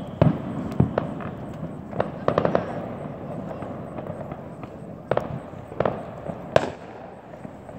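Distant fireworks going off: about ten irregular sharp bangs and pops, with a quick cluster about two seconds in and strong reports just after the start and near the end.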